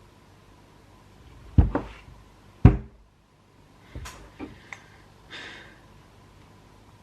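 Two heavy knocks about a second apart, then a few lighter metal clinks and a brief scrape: engine parts and hand tools, including a flathead screwdriver, being handled during a dirt bike engine teardown.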